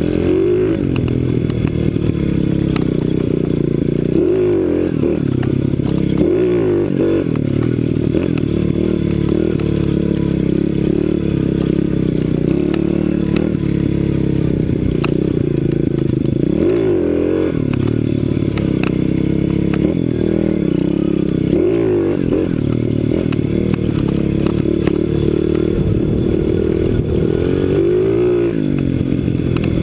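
CRZ 125 Pro pit bike's single-cylinder four-stroke engine under riding load, revving up and falling back again and again as the throttle is opened and closed. It sounds muffled, with little high end, as through a GoPro housing.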